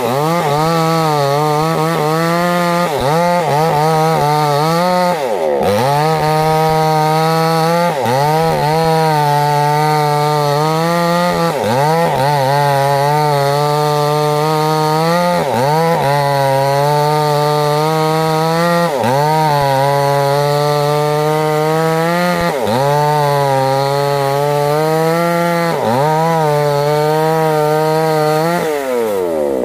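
Two-stroke chainsaw running at full throttle, cutting crosswise through a thick trembesi (rain tree) log. Its steady engine note sags in pitch and picks back up every few seconds as the chain bites into the wood.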